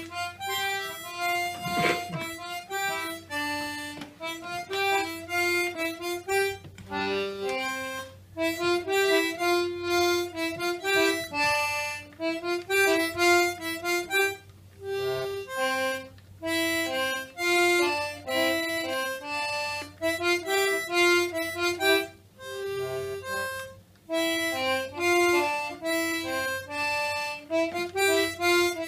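Harmonica in a neck rack and a concertina played together by one player, a tune of quick melodic notes in phrases with brief breaks between them.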